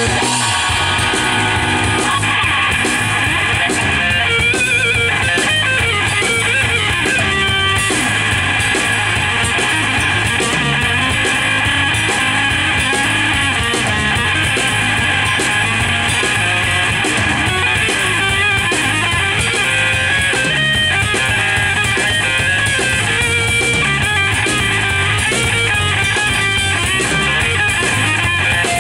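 A live rock band playing an instrumental piece: electric guitar, electric bass and drum kit together at a steady loudness.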